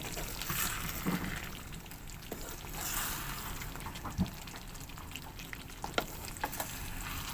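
Pork ribs caldereta cooking in a pan: a steady, soft sizzle as it is stirred, with a few scattered light clicks of the utensil against the pan.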